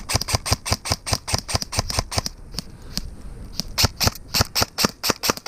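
Airsoft guns firing a fast string of sharp single shots, about five or six a second, with a brief lull about halfway through.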